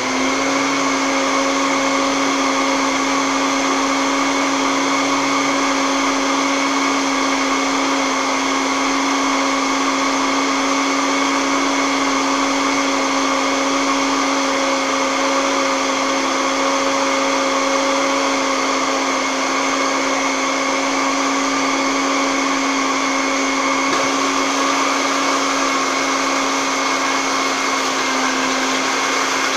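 Electric countertop blender running at one steady speed, a loud constant motor whine, blending egg, lemon juice and a little oil into mayonnaise.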